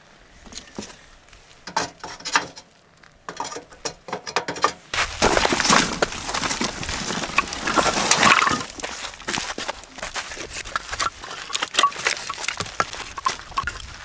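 Firewood and wood pellets being loaded into a metal fire pit lined with mesh. Scattered knocks and clinks come first, then from about five seconds in a dense rattle of pellets spilling onto metal, loudest around eight seconds, before it thins back to scattered clicks.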